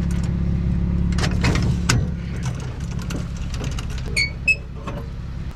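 Clicks and knocks of trailer hitch hardware being handled, then two short high squeaks about four seconds in as the teardrop trailer's tongue jack is cranked: a dry squeak that needs a spray of WD-40. A vehicle engine idles steadily underneath.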